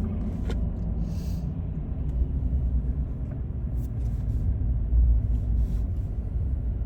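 Car driving, a steady low rumble of road and engine noise heard from inside the cabin, with a few faint ticks.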